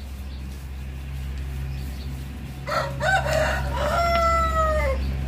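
A rooster crows once, starting about two and a half seconds in and ending in a long, slightly falling note. A steady low hum runs underneath.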